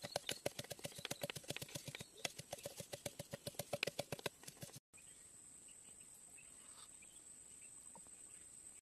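A stick pounding and stirring inside a green bamboo tube: a quick even run of hollow knocks, about six or seven a second, that stops about five seconds in. After that only a faint steady hiss of a shallow stream.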